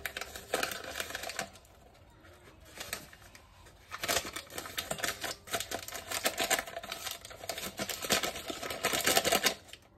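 Crinkling of a powder-mix sachet as it is handled and emptied, in quick crackly bursts: a short burst at the start, a lull, then dense crinkling from about four seconds in until just before the end.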